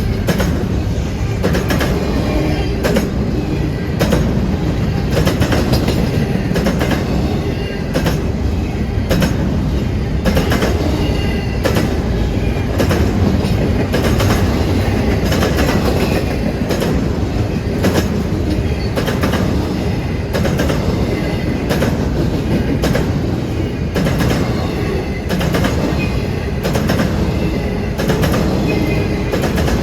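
Freight train cars rolling past, the wheels clicking steadily over rail joints, with faint high wheel squeal.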